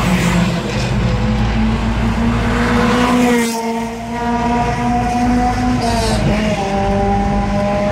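Loud exhaust of a car running hard at high revs, a steady multi-tone engine drone. The note changes abruptly about three and a half seconds in and again around six seconds, as with gear changes.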